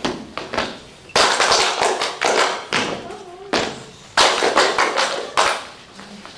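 Dancers' hand claps and foot stomps on a wooden stage, with no music: a body-percussion routine of sharp hits roughly every half second in an uneven rhythm. Each hit rings on briefly in the hall.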